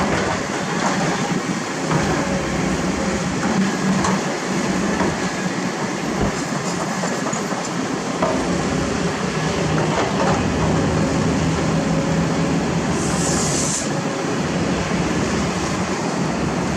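Kobelco excavator's diesel engine and hydraulics running steadily close by, with a steady low hum, as the boom lifts and swings a loaded bucket. A short hiss about thirteen seconds in.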